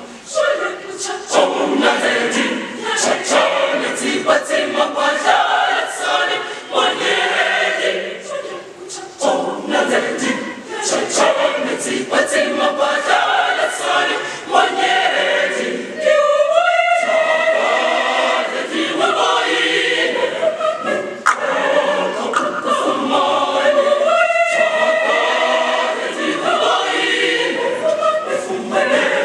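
Large mixed-voice school choir singing in parts, with brief breaks between phrases about 9, 16 and 24 seconds in.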